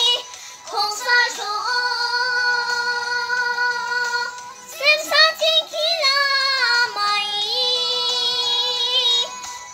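A young girl singing a birthday wishing song, holding long notes with a slight waver. There is a faster run of notes in the middle and short breaths between phrases.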